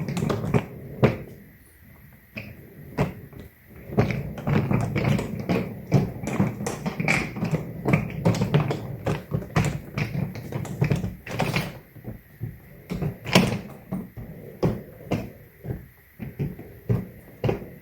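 Handling noise from a hardshell suitcase and the items going into it: a steady run of taps, knocks and clatter, with a louder knock about a second in and two more near the end of the middle.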